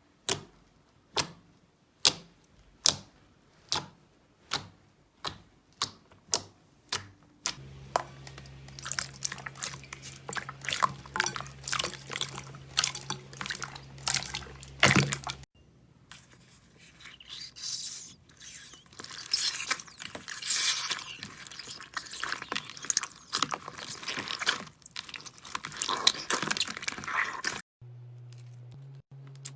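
Slime being played with by hand. First comes a series of sharp wet pops, evenly spaced at a little under two a second. Then come faster, irregular squishing crackles, and after a short pause, dense fizzy crackling.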